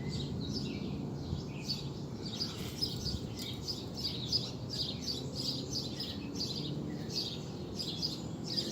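Small birds chirping in quick, repeated short notes over a steady low background noise.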